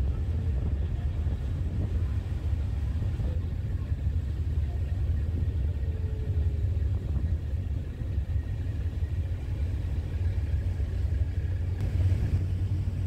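Steady low rumble of a passenger boat's engine, heard from on deck while under way.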